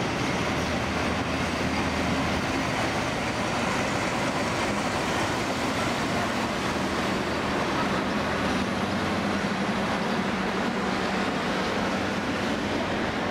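Red-and-white diesel locomotive of a passenger train running close by, a steady loud engine noise with a low hum.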